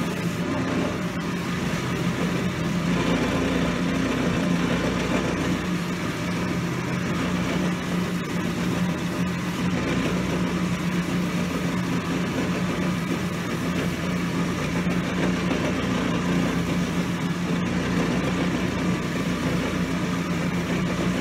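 Cobbler's finishing machine running with a steady hum, its polishing wheels spinning as a boot's sole edge is pressed against them for polishing.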